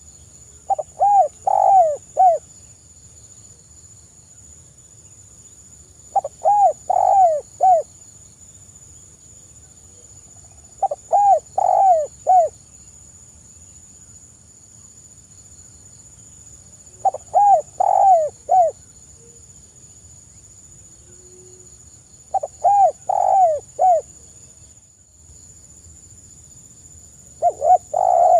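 Spotted dove (tekukur) cooing. It gives a phrase of four or five quick coos about every five seconds, six times, and the last phrase is cut off. Crickets make a steady high drone behind it.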